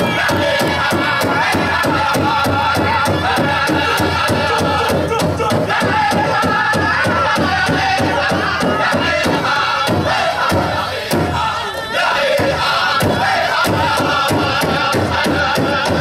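Pow-wow drum group singing a fast song in high voices over a steady big-drum beat, about three strokes a second, accompanying a women's fancy shawl dance.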